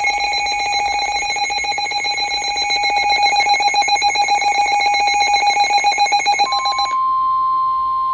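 Emergency Alert System alarm tones: a rapidly pulsing electronic alarm tone on fixed pitches, which cuts off about seven seconds in. Shortly before that, a single steady tone starts and carries on.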